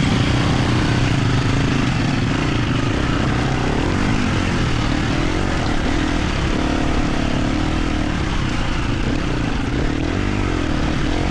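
A Husqvarna FE250's single-cylinder four-stroke engine running as the dirt bike is ridden, its pitch rising and falling gently with the throttle.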